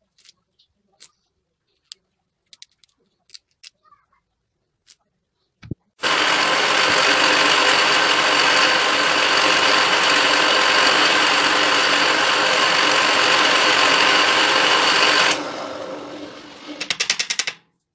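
A few light clicks and a knock as a steel block and bolt are handled. About six seconds in, a drill press starts and runs steadily under load as the bit drills into the steel block. Near the end the sound drops sharply and fades, with a quick run of rattling clicks just before it stops.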